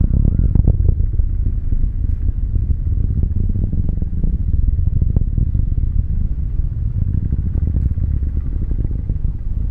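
Falcon 9 first stage, nine Merlin engines at full thrust during ascent, heard from about 13 miles away: a steady deep rumble with irregular crackles running through it.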